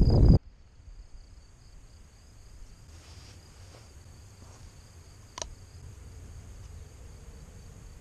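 Crickets chirping in a pulsing, high-pitched trill, faint under a low background hum. A loud rumbling, rustling noise stops abruptly about a third of a second in, and a single sharp click comes about five seconds later.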